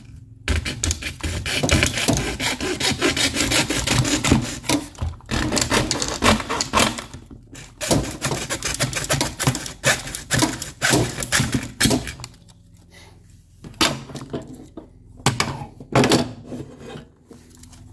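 Hand hacksaw cutting a clear plastic shower-door bottom seal with quick back-and-forth strokes, stopping about twelve seconds in. After that, a few light clicks as the cut pieces are handled.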